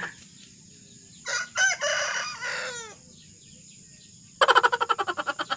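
A rooster crowing once, about a second in: a call of about a second and a half ending in long falling notes. Near the end comes a louder, rapidly pulsing sound of about a second and a half.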